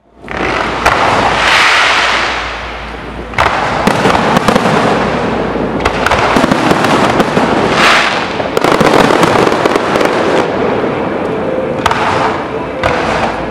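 Fireworks display fired from ground level: continuous dense crackling and popping of small shells and crackling stars, with a loud rushing hiss from the fountains about two seconds in and again around eight seconds.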